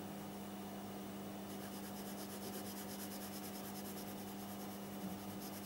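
Graphite pencil shading on paper: quick, even back-and-forth scratching strokes begin about a second and a half in, over a steady low hum.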